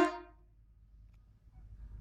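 Tail of a short blast from a homemade truck air horn, dying away within about a third of a second. Near the end there is a faint low rumble.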